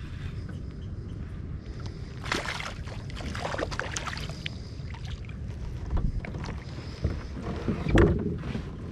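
Water splashing and sloshing around a fishing kayak: several short splashes over a low steady rumble.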